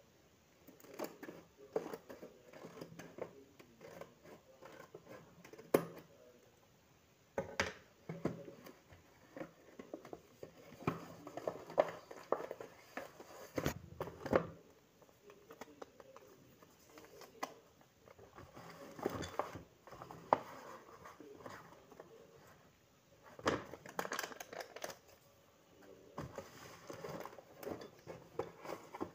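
A hand-lettered paper blind bag being handled and opened: irregular rustling and crinkling of paper, broken by sharp clicks and snaps.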